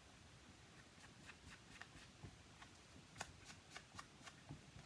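Faint, quick dabbing of an ink sponge on the edges of a paper piece: a soft, irregular tapping of about three light taps a second.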